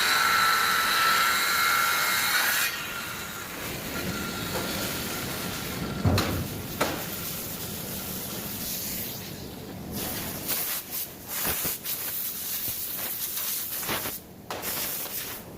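Circular saw running with a high whine for the first couple of seconds, then the whine drops away and fades. After that come two sharp knocks and irregular rubbing and scraping noise.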